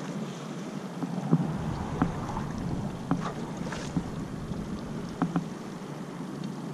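Small boat's outboard motor running steadily as the boat moves along, with water slapping against the hull in a few irregular knocks.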